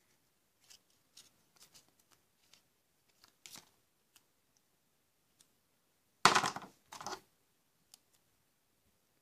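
Small paper slip from a Kinder Surprise egg being handled and unfolded: faint crinkles and rustles, then two louder bursts of rustling about six and seven seconds in.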